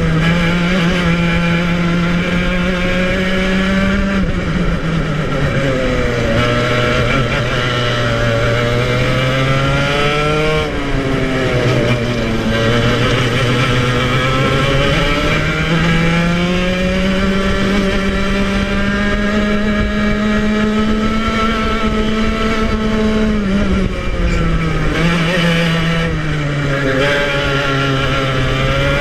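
A 115cc TKM two-stroke kart engine at racing speed, heard from the driver's seat. Its pitch falls sharply three times as the driver lifts off and brakes for corners, then climbs steadily again as the kart accelerates out.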